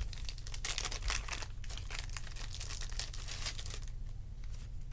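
Foil trading-card pack wrappers crinkling and rustling as they are handled, a dense crackly rustle for about three seconds that dies down near the end.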